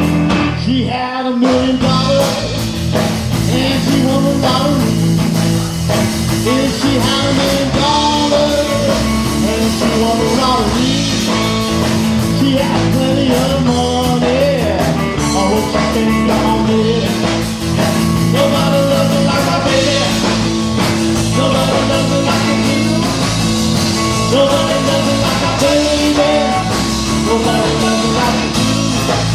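Live blues-rock band playing an instrumental stretch with no vocals: electric guitar over bass and drums.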